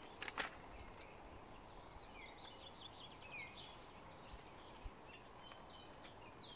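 Faint songbird singing from about two seconds in, a run of quick chirps and short rising and falling whistles over low outdoor background noise. Near the start there is a brief papery rustle.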